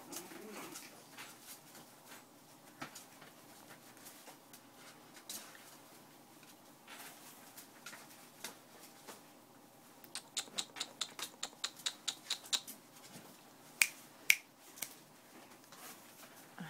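Boston Terrier puppies stirring in a plastic kiddie pool, with scattered small clicks and scratches. About two-thirds of the way through there is a quick run of about a dozen sharp ticks, and shortly after come two louder sharp clicks.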